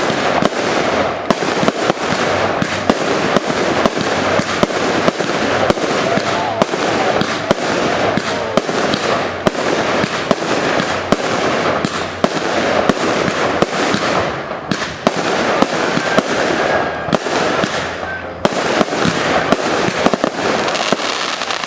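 Fireworks display in a dense, continuous volley of bangs and crackling with no pause. Crowd voices are faintly heard underneath.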